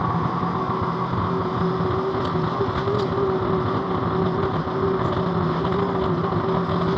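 Mini skid steer engine running steadily at working speed, with a constant whine and a couple of faint ticks about two and three seconds in.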